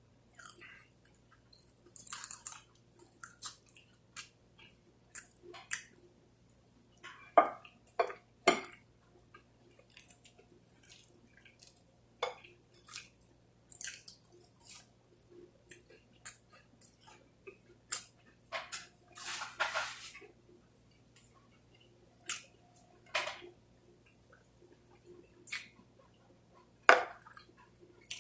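Close-miked eating: a person chewing and biting fried food, with irregular wet smacks and crunches, a few of them louder than the rest.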